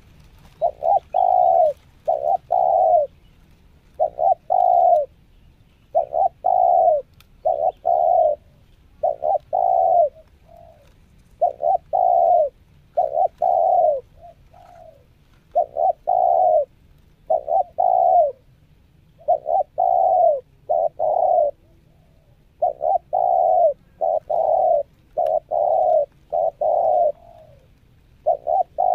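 Spotted dove (tekukur) cooing steadily, a decoy bird calling to lure wild doves. The coos come in quick runs of two or three, each coo about half a second long, with short pauses between runs.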